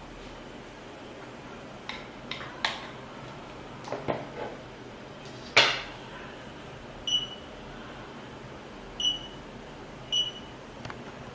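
Touch-screen alarm control panel giving short high key-press beeps, one every second or two in the second half, after a few sharp clicks and knocks of the unit being handled, the loudest about halfway through.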